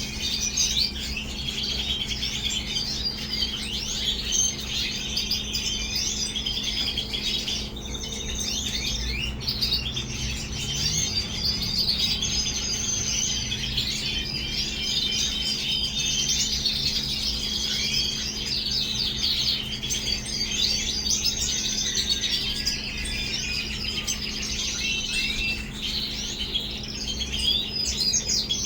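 Caged European goldfinches and red siskins chirping and singing, a dense, continuous twittering of many overlapping quick calls and trills.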